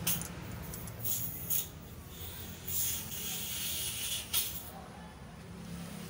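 A few short hissing, rustling noises over a steady low hum.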